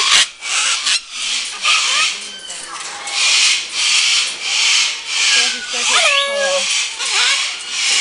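A flock of sulphur-crested cockatoos screeching: a run of harsh screeches, more than one a second, with a few higher, pitched squawks that bend up and down about three quarters of the way through.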